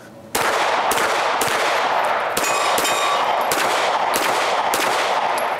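Airsoft pistol firing a string of quick shots at paper targets and a steel plate, over a loud, steady rushing noise. Near the middle a steel target rings briefly after a hit.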